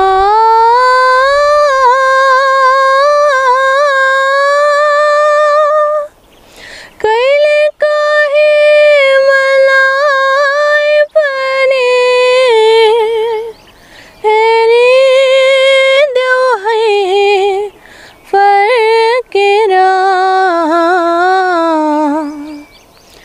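A teenage girl singing unaccompanied, a wordless vocal passage of long, held notes with a wavering, ornamented pitch. It comes in several phrases of a few seconds each, with short breaths between them.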